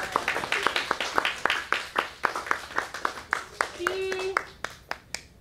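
Audience applauding, the hand claps thinning out and dying away near the end. A voice is briefly heard through the clapping about four seconds in.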